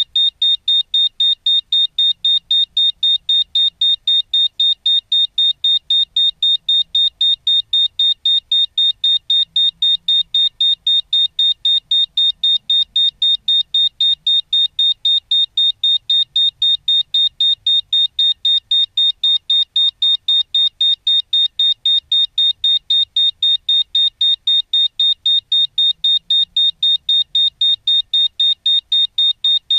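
Electronic beeper on a high-altitude balloon payload sounding a loud, high-pitched beep, evenly repeated about three times a second.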